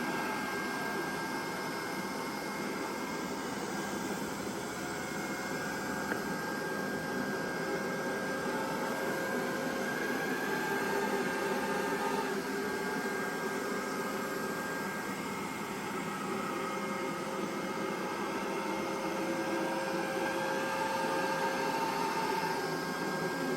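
Neato Botvac D Series robot vacuum running a cleaning cycle: a steady whir with a thin, constant high whine.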